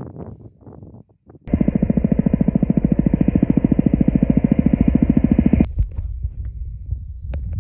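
Helicopter rotor chop: a loud, rapid, even beating that starts abruptly about a second and a half in and cuts off suddenly about four seconds later.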